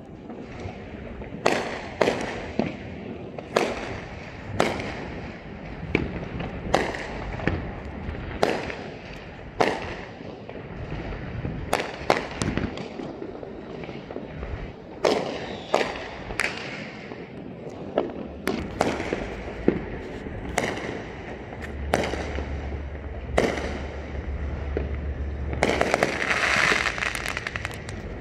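Fireworks exploding, a sharp bang every second or two, each trailing off in an echo. Near the end the bangs run together into a dense crackle lasting a couple of seconds.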